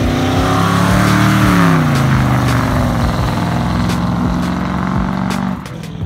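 1966 Ford Mustang's swapped-in 302 V8, running through headers and exhaust, accelerating away: the revs climb for about a second and a half, fall back, then hold steady before the sound drops off sharply near the end.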